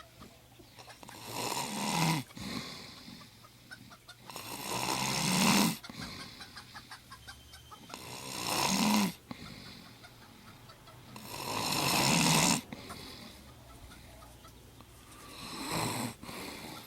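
A person snoring: five long, rising breaths about every three and a half seconds, each cut off abruptly. Chickens cluck faintly between the breaths.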